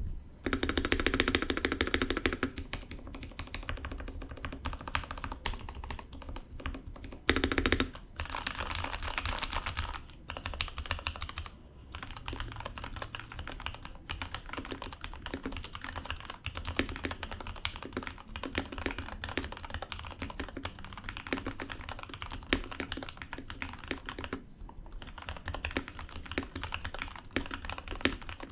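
Typing on a mechanical keyboard fitted with Pressplay Ryoko Cherry-profile PBT keycaps: a fast, continuous run of keystroke clacks, broken by brief pauses about 10, 12 and 24 seconds in.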